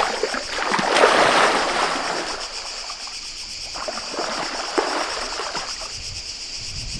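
Water splashing as a person wades into a shallow river and plunges in to swim, loudest about a second in and then settling into smaller splashes. A steady high-pitched insect noise runs underneath.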